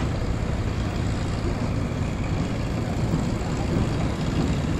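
Eicher tractor's diesel engine running steadily while pulling a heavy load of sugarcane, a low even drone.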